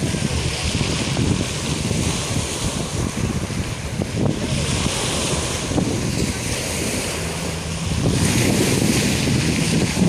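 Sea waves breaking and washing over a pebble beach, with wind buffeting the microphone. The surf grows louder about eight seconds in.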